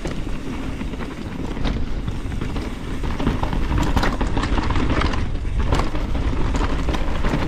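A mountain bike rolling fast down a rooty singletrack trail. There is a steady low rumble of tyres and wind on the helmet camera's microphone, broken by frequent knocks and rattles as the bike goes over bumps.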